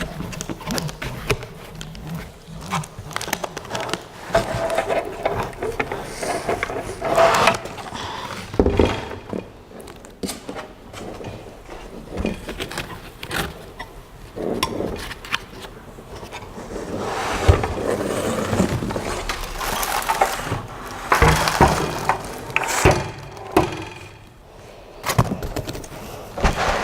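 Unboxing noises: parts being worked out of very tightly fitted packaging, with scraping, rubbing and irregular knocks, busier and louder in the second half.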